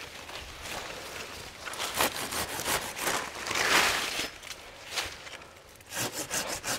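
Hand pruning saw cutting through a guava branch in a series of strokes, the longest a little past halfway, with a few quick clicks near the end.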